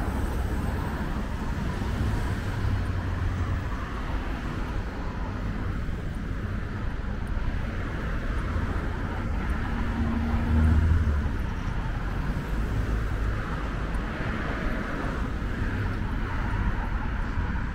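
Steady street traffic: cars, SUVs and pickup trucks passing on a multi-lane road, with tyre hiss and engine rumble. One vehicle passes louder about ten seconds in.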